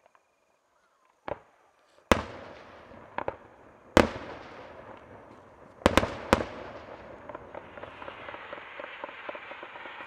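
Fireworks going off: a string of sharp, echoing bangs, about seven in the first six seconds. From about seven seconds in comes a dense, steady crackle of many small pops.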